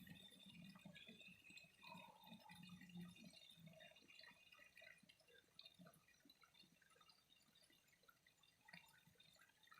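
Faint trickling water, with many small drips and plinks and a few low gurgles in the first three seconds.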